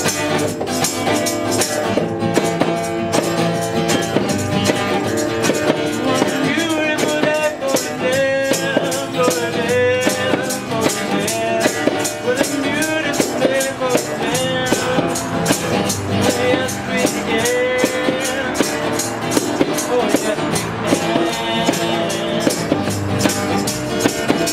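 Acoustic busking band playing: strummed acoustic guitars, a tambourine shaken in a fast steady rhythm, and a singer's voice.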